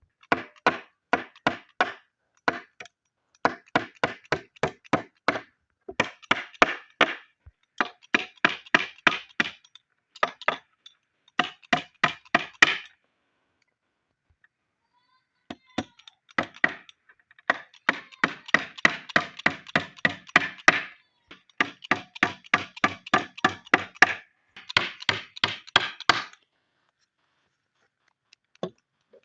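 Wood being struck repeatedly by hand: quick runs of sharp knocks, about four a second, broken by a couple of short silent pauses.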